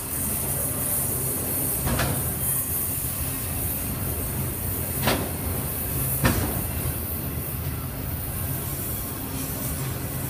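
Freight train of enclosed autorack cars rolling past close by: a steady rumble of steel wheels on rail, broken by three sharp clanks, the last and loudest about six seconds in.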